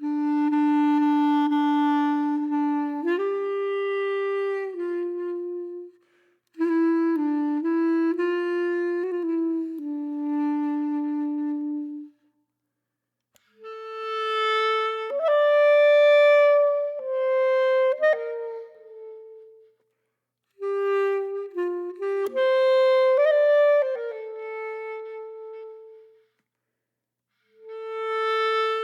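Background music: a single melody played on a solo wind instrument, in slow phrases of about five seconds with short pauses between them.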